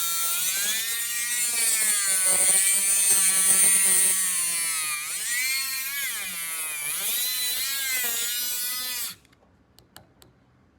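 Dremel Stylo+ rotary tool with a tile-cutting bit grinding into a thick, ridged yellow prickly cockle shell. The motor's whine wavers in pitch as it is pressed into the shell, with a hiss of grinding over it, then stops suddenly about nine seconds in, followed by a few light clicks.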